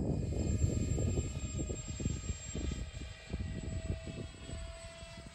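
Twin electric ducted fans of an RC flying wing in flight, giving a steady whine that rises slightly in pitch in the second half. Wind rumbles on the microphone underneath, strongest in the first half.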